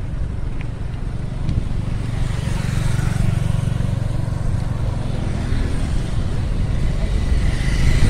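Road traffic on a city street, with motorcycles overtaking close by, over a steady low rumble; it grows louder near the end.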